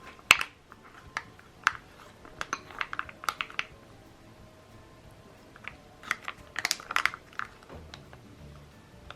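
Scattered light clicks and taps of small objects being handled, in irregular clusters.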